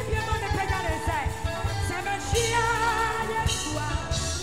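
Live gospel worship band music with a singer's voice over it: keyboards, a steady bass and a busy drum beat under a wavering sung melody.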